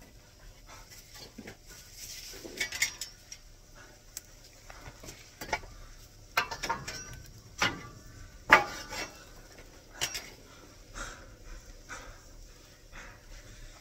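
A metal tool knocking, clinking and scraping against the frame and logs of a wood fire's firebox: irregular strikes, a few with a brief metallic ring, the loudest about eight and a half seconds in.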